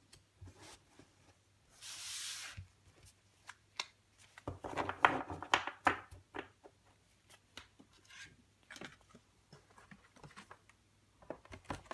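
Paper and card from a CD album package being handled: a short sliding paper swish about two seconds in, then a loud flurry of crisp flicks and rustles around five seconds as a thin stack of printed photo cards is handled, with light taps and rustles scattered through the rest.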